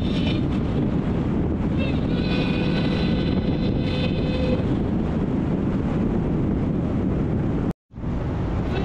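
Wind and road noise rushing over a hood-mounted microphone as the Hellcat cruises at highway speed. From about two to four and a half seconds in, a faint steady high whine from its supercharged V8 shows through. The sound cuts out for a moment near the end.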